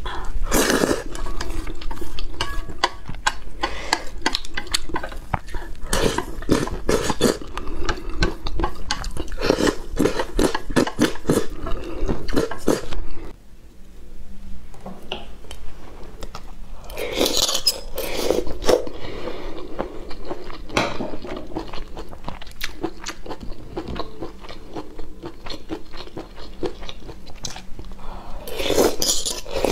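Close-miked eating sounds: slurping and chewing instant noodles, then, after a break about 13 seconds in, biting and chewing scallops topped with glass noodles and garlic, with light clicks of a fork and plate.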